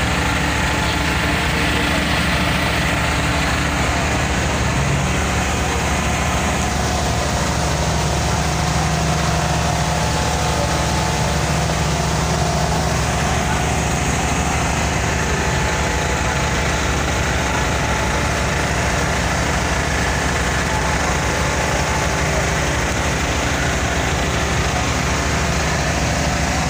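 A passenger boat's engine running steadily, heard from inside the cabin as a constant drone with a low hum.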